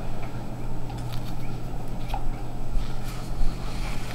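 Room tone: a steady low hum with scattered faint clicks and rustles.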